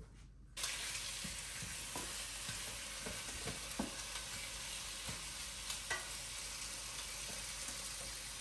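Lamb liver sizzling in hot vegetable oil in a slow cooker's pot on sauté mode. The sizzle starts suddenly about half a second in and then holds steady, with a few light taps of a utensil over it.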